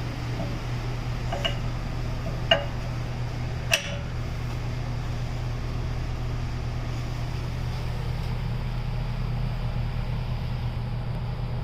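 Three light metallic clinks, the last the loudest, as the machined aluminum wheel adapter is set onto the wheel hub, over a steady low hum.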